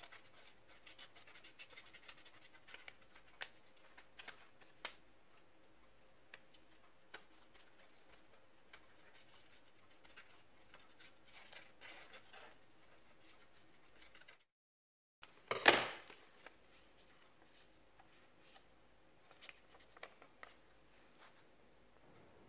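Scissors snipping through a paper template: faint, irregular cuts with light paper rustling. About fifteen seconds in there is a single brief loud noise, the loudest sound here, followed by a few more faint clicks.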